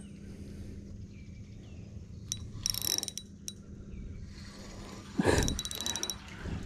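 Spinning reel being cranked during a retrieve, its gears whirring and clicking in two short spells, about two and a half seconds in and again around five seconds in.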